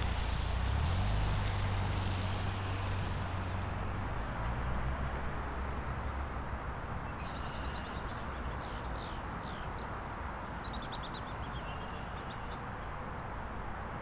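A low engine hum fading away over the first few seconds over a steady background of distant traffic-like noise. From about halfway in to near the end, a songbird sings repeated quick chirping phrases.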